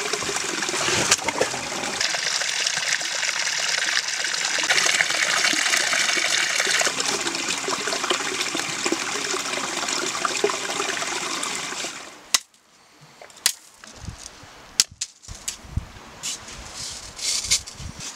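Small stream trickling and splashing over rocks, close by and loud. About twelve seconds in it cuts off, and scattered sharp knocks and taps follow.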